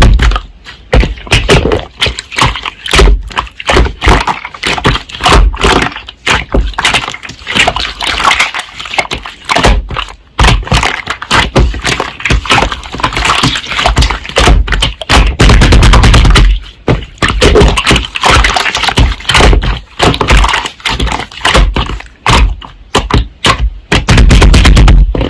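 Slime being squished and pressed by hand close to the microphone: dense crackling and popping clicks, with several stretches of heavy low thumping.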